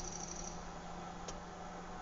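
Countryside outdoor ambience: a steady low hum under a soft background hiss. A high, rapid trill stops about half a second in, and a single short click or chirp comes a little past the middle.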